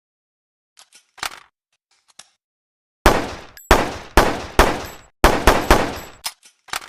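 PPM-9 handgun sound effect: a couple of light mechanical clicks, then a rapid string of about nine gunshots, each with a short decaying tail.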